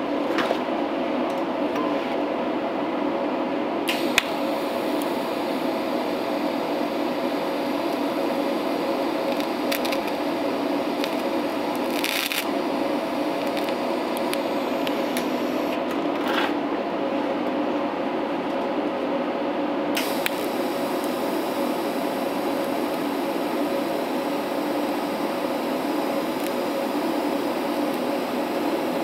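TIG welding arc from an Eastwood TIG 200 DC welder, brazing silicon bronze wire over a radiator port. The arc strikes with a sharp click about four seconds in and runs as a steady high hiss with a few crackles, breaks off around sixteen seconds and strikes again about twenty seconds in, over a steady low hum.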